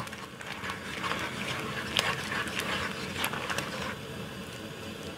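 Wooden spoon stirring rice cakes and seasoning through hot broth in a pan: a low steady hiss with a few light taps of the spoon.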